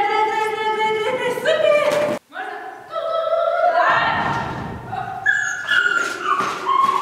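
Small dog giving high-pitched, drawn-out yelps and whines one after another, with a short break about two seconds in.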